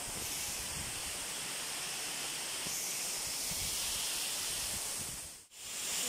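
Steady rushing hiss of a waterfall's falling water, which drops out for a moment near the end and then comes back.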